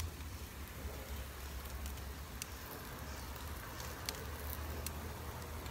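Tilapia fillets sizzling on a gas grill's grates, a steady hiss with a few faint crackles.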